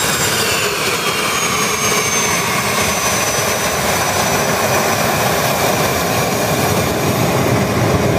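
Twin Williams FJ44 turbofans of a Cessna Citation CJ1 running at taxi power: a steady jet rush with a high whine that slowly drops in pitch.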